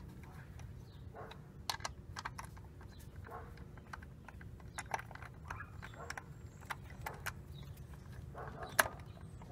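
Light, scattered metallic clicks and taps of a socket on an extension being turned by hand on the ignition coil's bolts, with one sharper click near the end.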